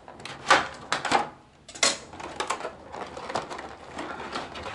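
Stiff clear plastic blister tray of a toy's packaging being handled: irregular crackles and clicks, with a few louder snaps in the first two seconds, then a run of small ticks.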